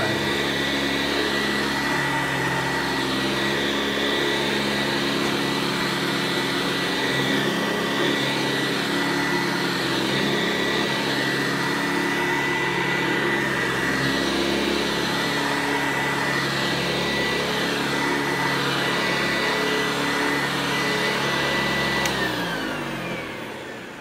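Hoover Convertible U4345 upright vacuum cleaner running steadily with a high whine. About two seconds before the end it is switched off and its motor winds down, dropping in pitch and fading.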